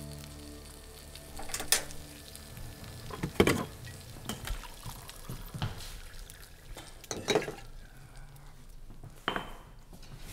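Kitchen clatter during breakfast cooking: utensils and cookware knocking against pans and dishes in scattered separate clinks, a second or two apart. A music tail fades out over the first couple of seconds.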